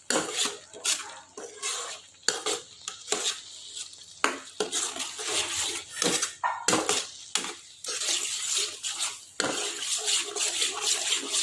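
A spoon scraping and clinking against a cooking pot as food is stirred and scooped, in quick, irregular clatters.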